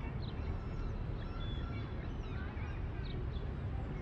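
Outdoor ambience: birds chirping and calling, many short chirps scattered throughout, over a steady low rumble.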